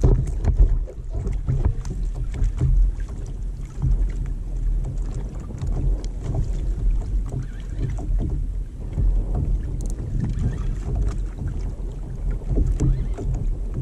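Wind rumbling over the microphone aboard a pedal fishing kayak, with scattered small knocks and water splashes against the hull.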